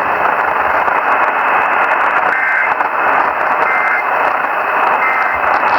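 Loud steady radio static hiss from a weather radio receiver after the broadcast voice stops. Three short, faint two-tone warbles come about a second and a half apart: the EAS end-of-message data bursts.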